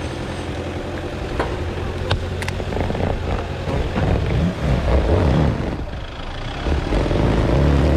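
Toyota Hilux 3.0 four-cylinder turbodiesel running under load as the truck crawls up a steep slope, growing louder about halfway through. A few short sharp cracks sound early on.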